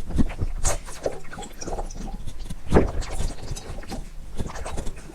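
Water being drunk: a series of irregular gulps and swallows, the loudest nearly three seconds in.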